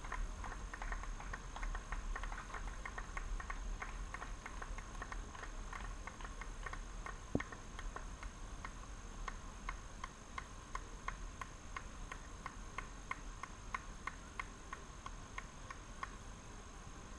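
Running shoes striking a paved path as a pack of runners passes close by: many overlapping footfalls at first, thinning to the steady strides of a few runners. A single sharp knock about seven seconds in.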